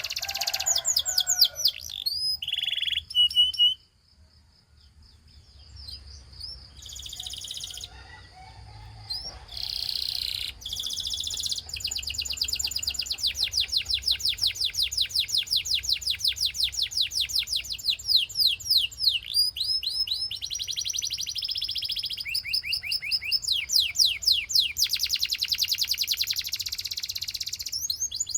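Gloster canary singing: long, fast trills of rapidly repeated high notes, with a short lull about four seconds in before the song picks up again.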